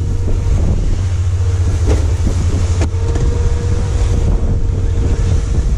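Wind buffeting the microphone, with bow spray and waves rushing past, as a small open fishing boat runs at speed through rough, choppy sea. A steady low drone sits underneath.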